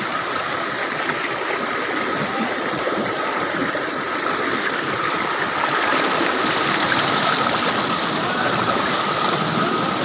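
Shallow rocky stream rushing and splashing over small cascades, a steady rush of water that grows a little louder about six seconds in.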